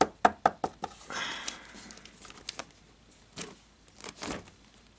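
Vinyl record albums in their sleeves being handled and moved about: a quick run of sharp knocks and taps in the first second, a short sliding rustle, then scattered taps and a couple of duller knocks.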